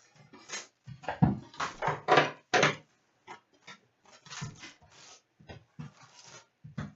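Packaging being handled and torn as a sealed box of trading cards is opened: irregular crinkly rustles and rips, loudest about one to three seconds in.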